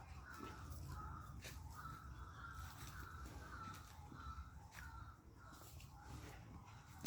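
Faint bird calls: a run of short calls, about two a second, over a low rumble.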